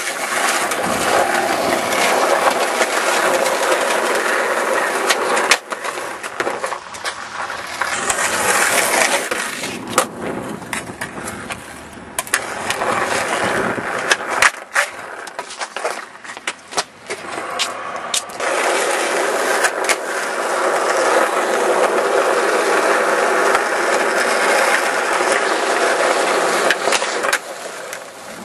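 Skateboard wheels rolling over rough pavement, with several sharp knocks along the way.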